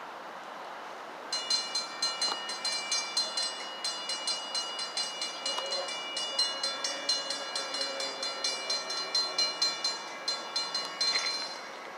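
Railroad crossing warning bells ringing rapidly, several overlapping metallic strikes a second. They start about a second in and stop abruptly near the end. One of the bells sounds strange.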